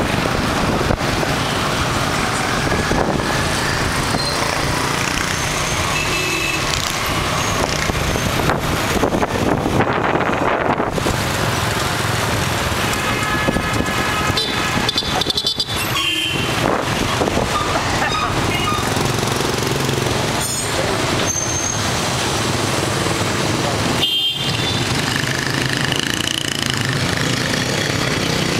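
Busy street traffic heard from the back of a moving motorbike: steady engine and road noise with wind on the microphone, and several short motorbike horn toots scattered through.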